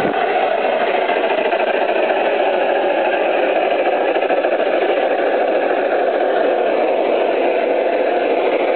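USA Trains Union Pacific Big Boy model locomotive running under power: a steady drone from its motors and gearing, mixed with its wheels rolling on the rails.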